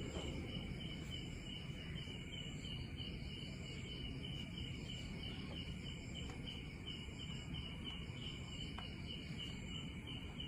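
Insects chirping in an even, rapid pulsing rhythm over a low steady rumble.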